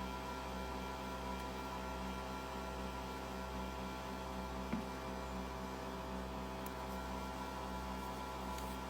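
Steady electrical mains hum with a buzzy stack of even tones, with one faint tick about five seconds in.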